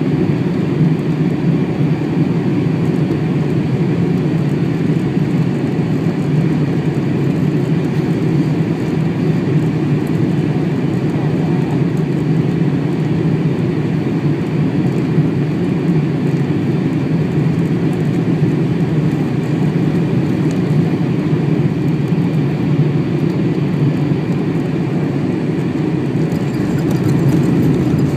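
Steady cabin noise inside a Boeing 747-400 on final approach with flaps extended: a low, even rush of engines and airflow, growing a little louder near the end as the runway comes up.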